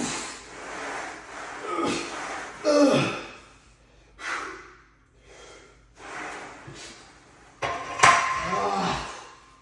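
A lifter breathing hard through the last reps of an incline Smith machine press, with a forceful exhale or grunt on each rep. About eight seconds in, a sharp metallic clank as the bar is racked, followed by a groaning exhale.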